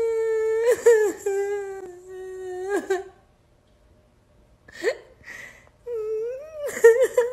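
A person fake-crying: a long, drawn-out high wail with catches in it, a pause of about a second and a half, then short sobs and another wavering wail near the end.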